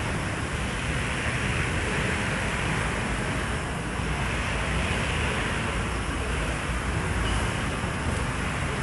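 Steady rushing background noise with a low rumble and no distinct events.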